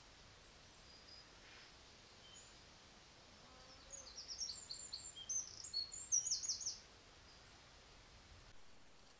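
A songbird sings one fast phrase of high, quick notes, starting about four seconds in and lasting about three seconds, ending in a rapid run of falling notes. Under it is a steady faint hiss.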